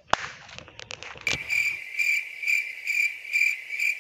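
A few short clicks, then from about a second in a steady, even chirping like a cricket, about two chirps a second, each at the same pitch.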